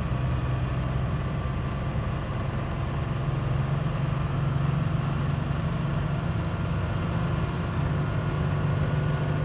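P-pump turbo-diesel pickup engine pulling steadily at highway speed under heavy throttle, its fueling turned down to a 7 PSI boost signal by an in-cab tuner. Its note climbs slowly as the truck gains speed, under steady wind and tyre noise on the outside-mounted microphone.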